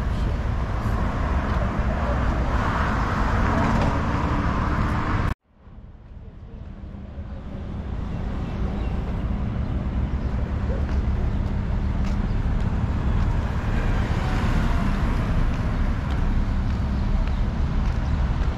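Steady low vehicle rumble with hiss, cut off abruptly about five seconds in and fading back up over the next few seconds.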